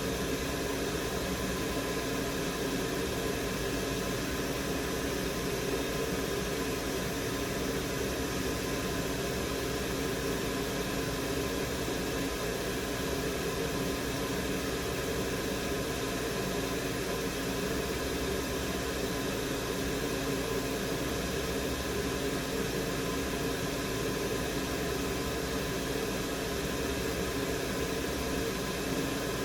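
Steady fan-like hum and hiss, with no knocks or changes.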